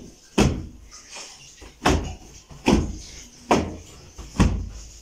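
Upholstered corner-sofa cushions being beaten by hand to knock the dust out: five dull thumps, about one a second, the first about half a second in.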